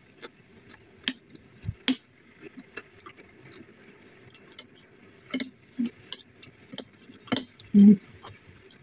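Metal spoon and fork clinking and scraping against a ceramic plate as chili sauce and cucumber pieces are scooped up, with scattered small clicks of eating. A few short hums come in the second half.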